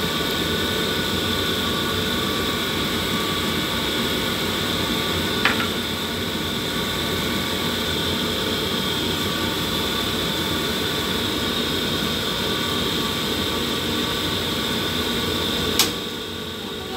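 Steady mechanical whir of a fan or motor, with two sharp clicks: one about five seconds in and one near the end, after which the whir dips briefly.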